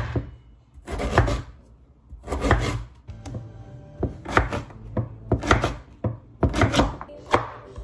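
Large kitchen knife slicing through a firm peeled vegetable and striking a wooden cutting board: a series of separate cutting strokes, a few at first, then about two a second.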